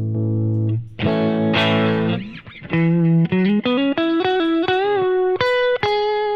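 Electric guitar played through a Fender Tone Master Pro modeller with a light overdrive. A held chord, a chord struck about a second in, then single notes climbing upward, one of them bent, ending on held notes.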